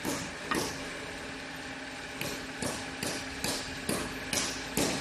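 Pneumatic screwdriver fired in short bursts, a quick hiss each time, repeating about twice a second in the second half, over a steady low machine hum.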